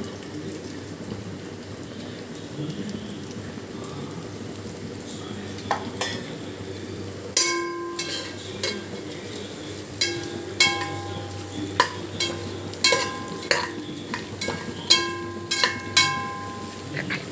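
Onions and chillies frying in hot oil in a pressure cooker pot, a steady sizzle. From about seven seconds in, a slotted steel spatula stirs them, with repeated ringing clinks as it knocks against the metal pot.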